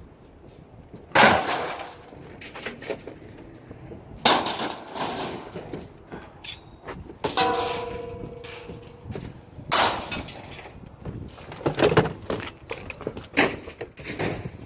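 Pieces of scrap metal being thrown onto a scrap pile, landing with a series of clangs about every two to three seconds. One lands near the middle with a short metallic ring.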